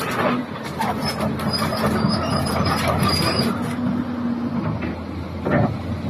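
Heavy machinery running steadily, with a faint whine that comes and goes.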